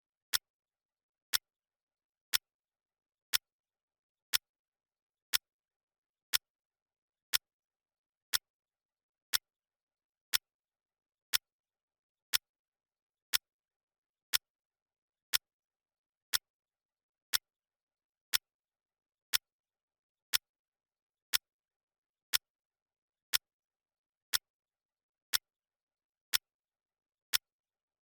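Clock ticking, one sharp tick each second, marking the seconds of a countdown, with dead silence between the ticks.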